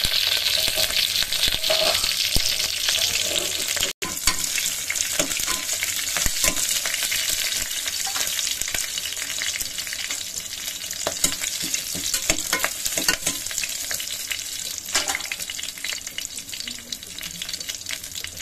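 Hot oil sizzling in a pressure cooker as a South Indian tempering fries: mustard seeds, curry leaves, crushed garlic and green and dried red chillies, with a steady hiss and many small crackling pops. The sound cuts out for an instant about four seconds in and slowly grows softer toward the end.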